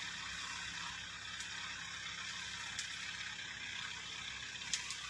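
Engine of a truck-mounted crane running steadily, a low even rumble under a steady hiss, with a few faint clicks.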